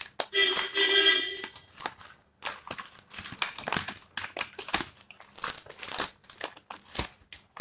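A sealed food-delivery bag being peeled open by hand: irregular crinkling and rustling of the wrapper with sharp crackles. A short pitched tone lasts about a second near the start.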